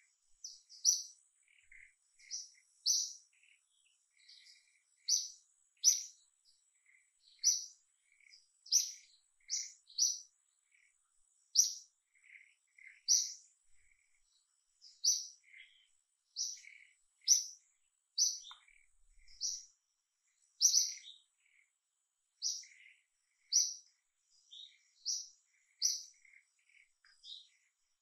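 Birds chirping: short, sharp high chirps repeated about once a second, with fainter, lower chirps in between. A faint steady high tone runs underneath.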